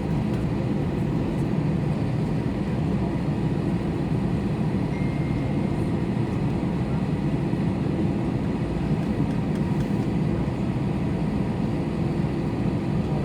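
Steady low rumble inside the cabin of an Airbus A321 taxiing after landing, from its CFM56 engines at idle and the cabin air system.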